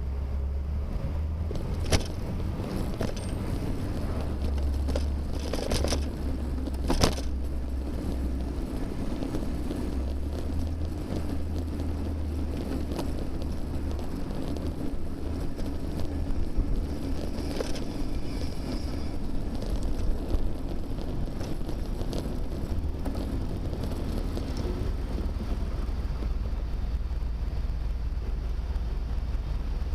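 Riding noise picked up by a bicycle-mounted camera: a steady low wind rumble on the microphone and rolling road noise, with a few sharp knocks and rattles, the loudest about two and seven seconds in.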